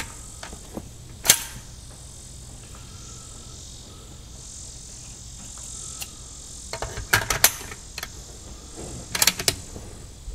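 Metal clicks from a custom Rim-X bolt-action .22 rimfire rifle being handled between shots: one sharp click about a second in, then two quick runs of several clicks near the end, like the bolt being opened and closed.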